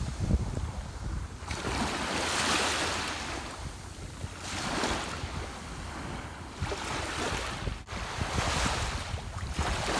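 Ocean waves breaking and washing up the shore in repeated surges, each a swell of hissing surf that rises and falls back, over a steady low rumble.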